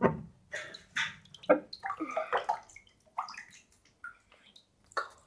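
Bath water splashing and sloshing as a person climbs out of a bathtub, in irregular splashes with drips between them, the loudest near the start and about a second and a half in.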